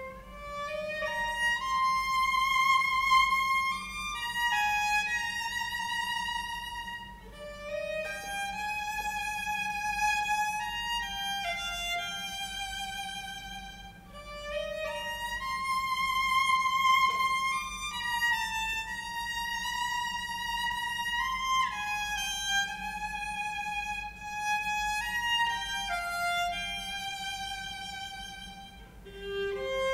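Solo violin playing a slow melody in long bowed notes with vibrato.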